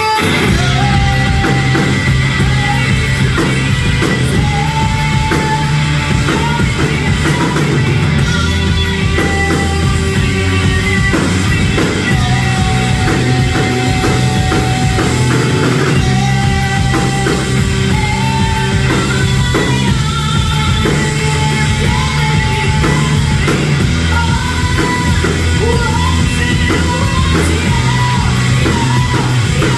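Loud live rock band playing at a sound check: drums, electric guitars and bass with a voice singing. The full band comes in all at once at the start.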